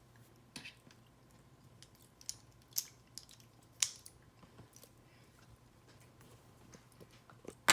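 Plastic LEGO pieces being handled and pressed together: a few separate sharp clicks and light taps, several seconds apart, with the loudest click near the end.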